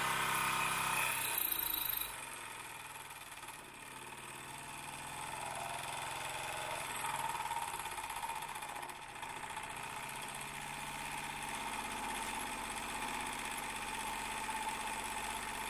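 Wilesco D20 model steam engine running. Its sound drops sharply about two seconds in, then carries on quieter with slow swells.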